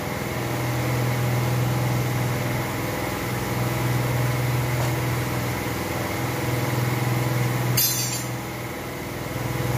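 Steady machine hum, with one short sharp metallic clink a little before the end.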